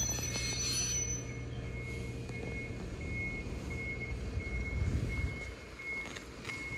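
High electronic warning beeper sounding short, single-pitched beeps about one and a half times a second, over a vehicle engine's low idling hum. A short hiss comes in the first second, and a low vehicle rumble swells about five seconds in.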